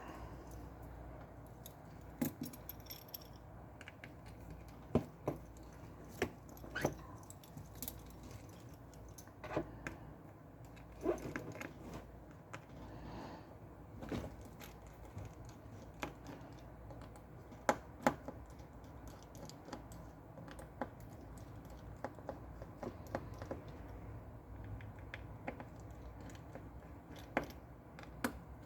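Irregular small clicks and taps of small metal tools and screws during screw removal on a Samsung Galaxy S20 FE 5G phone being disassembled. The clicks come every second or two at uneven intervals.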